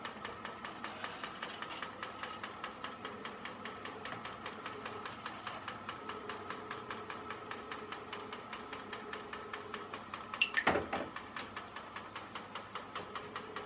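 Small electric motor of a radio-controlled toy boat running steadily, turning a single propeller fully under the water: a steady whine with a fast, even ticking, running quietly with the propeller right in the water. About ten and a half seconds in there is one short, louder knock.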